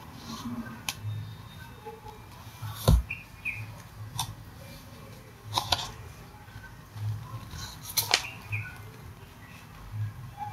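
Scattered sharp taps and knocks of things being handled on a desk, about five in all, the loudest about three seconds in, with faint short chirps now and then in between.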